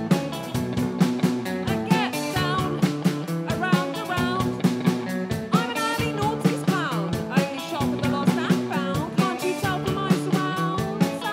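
Live rock band playing, with guitar over a steady drum beat.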